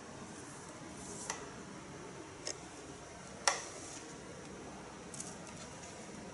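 Hands opening and turning the stiff cardboard pages of a board book on a tabletop: a few light clicks and taps, the loudest about three and a half seconds in, over a faint steady hiss.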